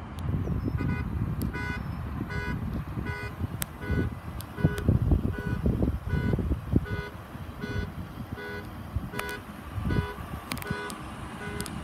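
A vehicle alarm or warning sounding a steady run of short beeps, about two a second, over a low wind rumble on the microphone.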